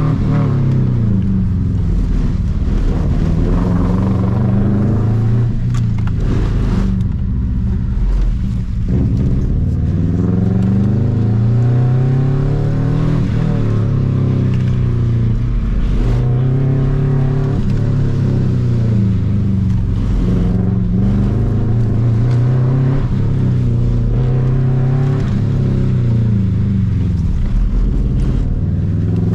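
Subaru Impreza 2.5 RS's flat-four engine under hard driving on an autocross course, its pitch rising under throttle and falling off again many times in a row.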